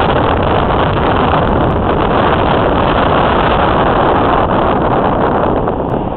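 Wind buffeting the microphone and road noise in a moving convertible with the top down, a loud, steady rush that eases off near the end.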